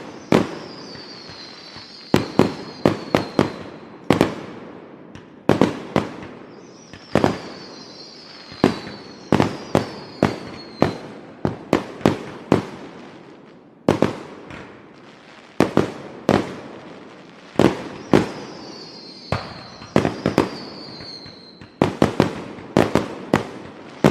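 Fireworks going off: a long series of sharp bangs, often several in quick succession, each trailing off. Every several seconds a high whistle glides down in pitch over a couple of seconds.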